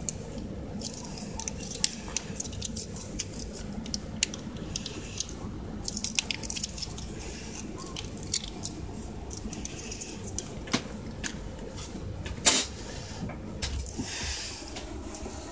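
Wet squishing and small clicks as lickable Churu cat-treat paste is squeezed from its stick pack and stirred in a ceramic cat bowl, with one sharper knock late on.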